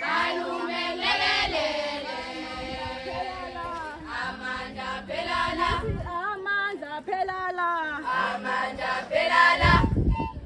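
A group of female voices singing together, a chant-like choral song. A low rumble comes in near the end.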